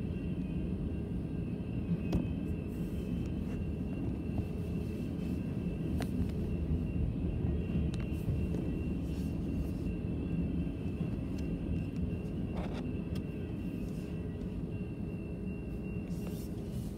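Freight train of flatcars rolling past a level crossing: a steady low rumble of wheels on rail with a few scattered clicks and a thin, steady high whine that stops about a second before the end, as the last car clears.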